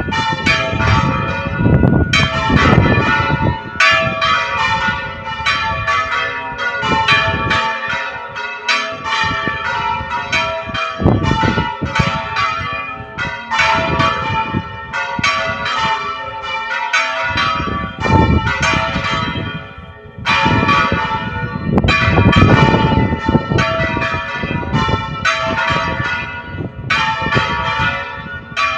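Church bells ringing, several bells of different pitches struck in quick, uneven succession so their tones ring over one another.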